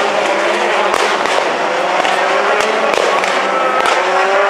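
Rallycross Supercar engines revving hard on track, their pitch rising and falling through gear changes, with repeated sharp cracks and pops over the engine note.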